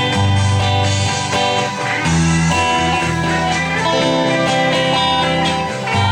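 Guitar-led instrumental music over a steady bass line, with the bass note changing about two seconds in and again near the end.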